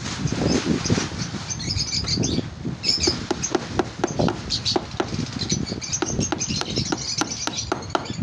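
Repeated light hammer strikes, about three a second from about three seconds in, tapping a thin metal strip down over wire mesh onto a wooden frame to hold the mesh in place. Birds chirp in the background.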